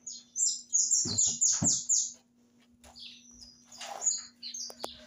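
A small bird chirping in quick runs of short, high, falling notes, densest in the first two seconds and then more scattered, with a few dull knocks mixed in about a second in.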